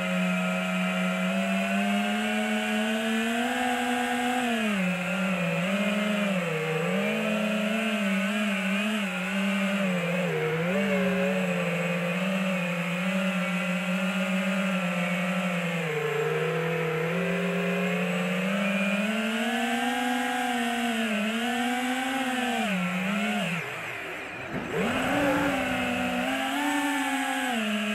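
Brushless motors and propellers of an FPV quadcopter, heard from its onboard camera: a steady whine that rises and falls in pitch with the throttle. Near the end the throttle is cut and the whine drops away, then it comes back up a second later.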